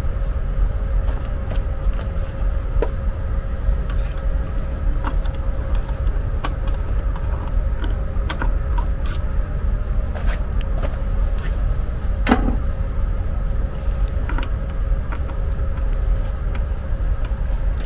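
Steady low machine rumble with a faint constant hum, under scattered light clicks and scrapes, one sharper click about twelve seconds in.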